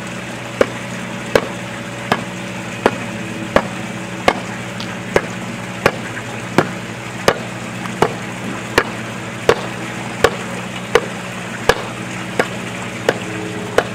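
Flat-plate hand tamper striking freshly placed Aquaphalt cold-patch asphalt in a pothole, compacting the patch with steady blows about three every two seconds. A steady low hum runs underneath.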